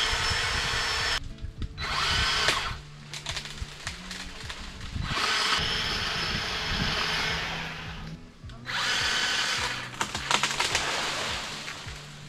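Cordless power saw cutting tree branches in four runs of one to two and a half seconds each, its motor whining as it runs, with short pauses between cuts.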